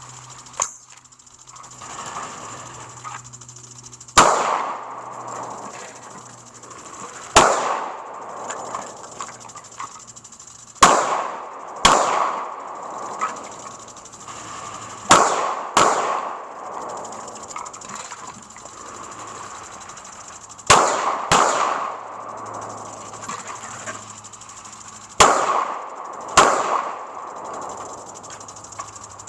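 AR-15 rifle shots: about ten sharp reports spaced a few seconds apart, several fired in quick pairs, each with a short echo.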